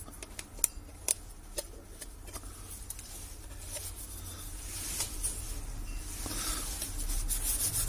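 Scattered light clicks and faint scratching as a smartphone's bare display frame is handled and cleared of leftover glass fragments. A soft rubbing noise builds toward the end.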